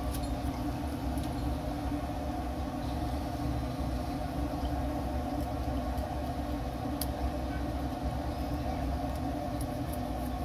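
A steady low mechanical hum and rumble with constant tones, and a few faint sharp clicks scattered through it.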